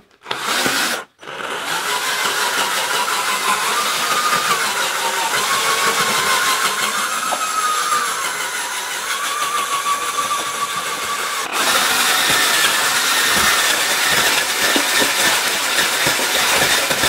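Electric drill spinning a paddle mixer through acrylic paint and powdered grout in a plastic bucket, the motor whine wavering in pitch. It stops briefly about a second in, then runs on, its sound changing about two-thirds of the way through.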